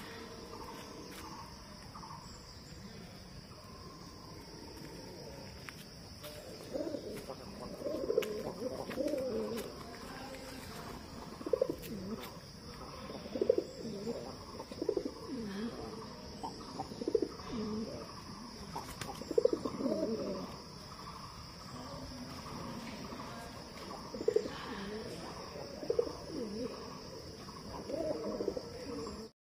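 Domestic pigeons cooing close by, a run of low coos rising and falling in pitch from about seven seconds in, over a steady high-pitched hiss.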